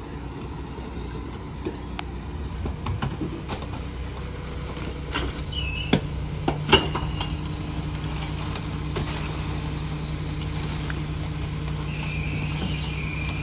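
McNeilus rear-loader garbage truck's engine running steadily, its hum growing stronger from about seven seconds in. Two sharp knocks come a little under a second apart about six seconds in, and high squeals sound briefly in the middle and again near the end.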